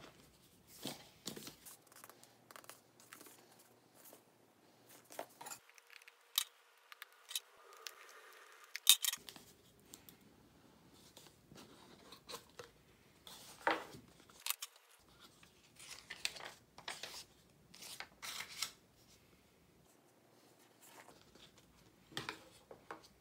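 Cardboard Samsung Galaxy S21 retail box being handled and opened: scattered taps, scrapes and tearing as the seal is broken and the lid is slid off, with a sharp click about nine seconds in.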